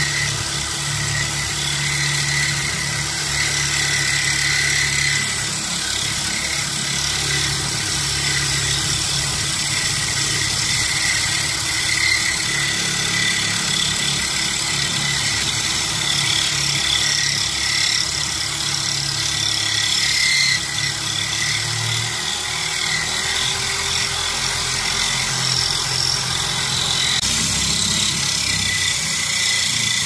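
Electric drill running steadily, its core bit grinding a hole through a glass window pane while water is poured on to cool it.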